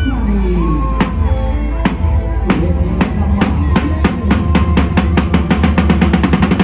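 Drum kit played live with a mor lam band over a steady bass line. Separate hits speed up in the second half into a fast, building drum roll.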